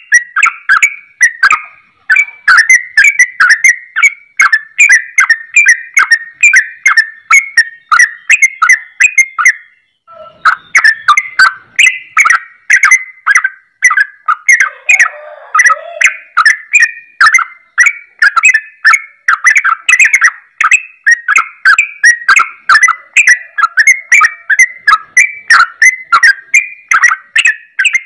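A yellow-vented bulbul (trucukan) singing a fast, unbroken stream of short whistled and chattering notes, the rapid 'ropel' style that is likened to a straw-headed bulbul's song, with a brief pause about ten seconds in.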